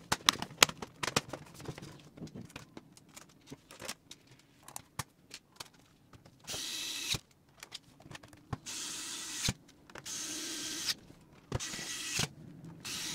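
Cordless electric screwdriver driving in the bottom panel's screws in five short runs of under a second each, each with a thin whine. Before them come clicks and taps as the panel is pressed into place.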